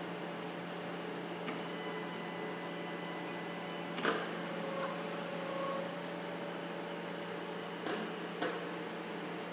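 Automated gantry assembly robot moving its head between fixtures over a steady fan hum. A faint high whine runs from about a second and a half in to about four seconds, and a lower whine follows around five seconds. Sharp clicks come about four seconds in and twice near the end.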